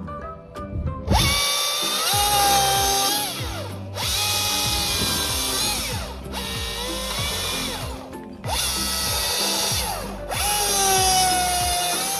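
Carving chainsaw cutting into a wooden block in repeated bursts of about two seconds, with short breaks between cuts. Background music plays underneath.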